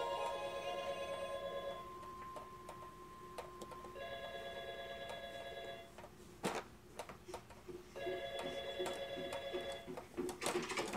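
Electronic ringing tone, a warbling trill sounding three times, about two seconds on and two seconds off, with a single knock between the second and third rings.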